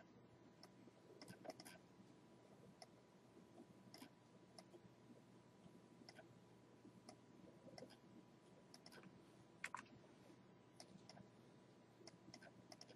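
Faint, irregular computer mouse clicks over near silence, a few slightly louder than the rest.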